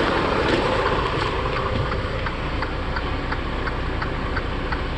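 Truck's airbag suspension being dumped: a hiss of escaping air, strongest in the first second and easing off, over an idling diesel engine. A regular ticking, about three clicks a second, runs through it.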